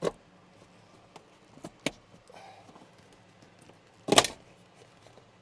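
A few sharp knocks and clicks from tools and parts being handled during repair work. Two come close together in the first two seconds, and the loudest, a short clatter, comes about four seconds in.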